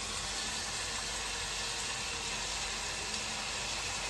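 Bone-in goat ribs sizzling steadily in a stainless steel stock pot, searing in the oil and sautéed spices.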